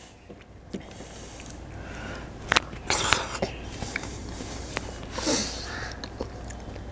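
A person eating thick chana dal with mutton by hand, picked up close on a lapel microphone: chewing and wet mouth smacks with a few sharp clicks in the middle, and a short breathy sound about five seconds in.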